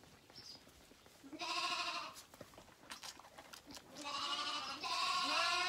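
Zwartbles lambs bleating at bottle-feeding time: one bleat about a second in, then two more back to back near the end, the last wavering up and down in pitch.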